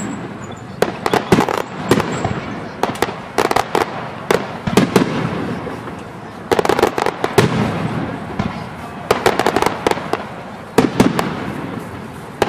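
Aerial fireworks shells bursting in clusters of sharp bangs and crackles every couple of seconds, each cluster followed by a low rumbling echo.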